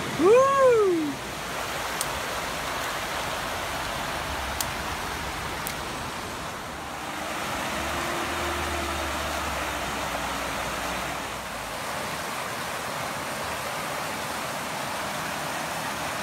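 Steady rush of a mountain stream running over rocks. Near the start, a person's short, loud vocal call that rises and then falls in pitch.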